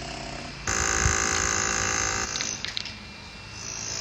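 Concrete-cutting chainsaw motor kicking in sharply about two-thirds of a second in and running at a steady high whine for about a second and a half. It then drops off with a few sharp clicks and picks up again near the end.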